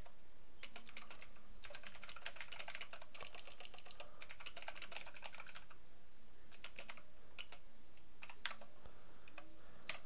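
Typing on a computer keyboard: a fast run of keystrokes, then scattered single key presses in the last few seconds.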